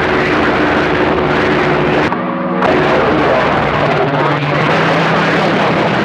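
CB radio receiver hissing with static between transmissions, steady whistling carrier tones riding on the noise; the static drops out briefly about two seconds in as a carrier keys.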